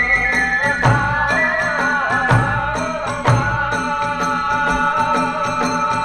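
Kagura hayashi ensemble playing: a bamboo flute holds a melody that steps up and down over a quick, steady beat of drum strokes and clashing hand cymbals, with a deeper drum stroke about once a second.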